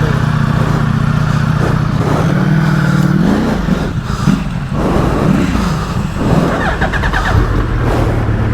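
Motorcycle engine under way, holding a steady note, then revving up and down several times through the middle before settling back to a steady note, with wind rushing over the microphone.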